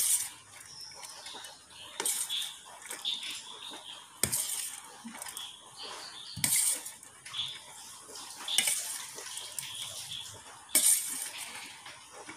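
Chopped green chillies being added to a stainless steel bowl of chopped, salted curry lemon, with short clattering scrapes against the bowl about every two seconds.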